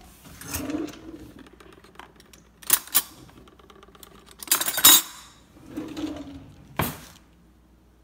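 A hand rummages through stainless-steel cutlery in a plastic drawer tray to pick out a spoon. There are two sharp clicks, then a loud clatter of spoons and forks about halfway through, and a single sharp knock near the end.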